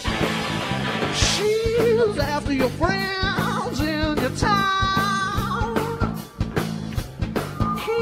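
Live rock band with electric guitar, bass and drums playing a driving beat. From about a second in, a blues harmonica wails bent notes over them.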